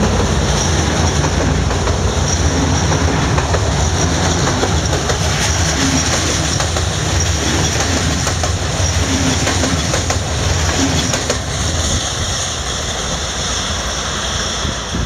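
Passenger coaches of an express train rolling past close by, their wheels clacking over the rail joints. The sound eases off after about eleven seconds as the train moves away.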